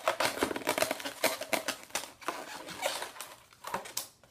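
Latex twisting balloons being handled, pulled and worked, giving a quick run of short squeaks, rubs and crackles that thins out towards the end.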